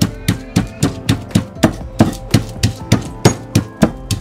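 Stone pestle pounding spring onions and spice paste in a stone mortar, striking about three times a second, over background music.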